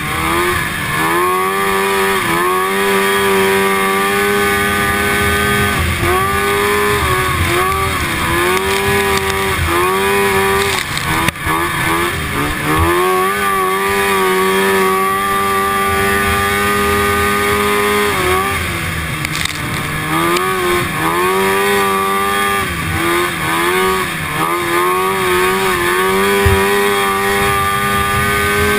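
1974 Rupp Nitro snowmobile's two-stroke engine racing at high revs, the pitch dipping and climbing back again and again as the throttle is eased and reopened, and held steady for several seconds at a time on the straights. A single sharp knock comes about eleven seconds in.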